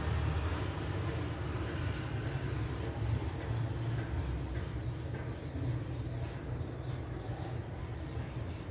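Graphite pencil rubbing and scratching on drawing paper as small circles are sketched, over a steady low hum.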